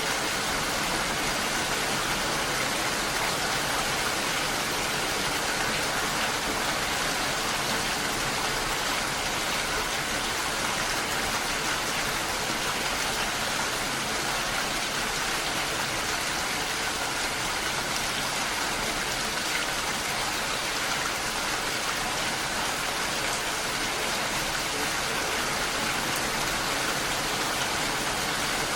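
Steady, even rain falling, a continuous hiss with no breaks.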